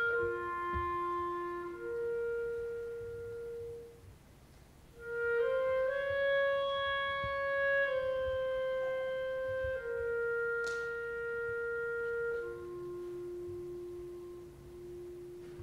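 A solo clarinet in a concert band plays a slow, quiet melody of long held notes, with a short break about four seconds in before the next phrase.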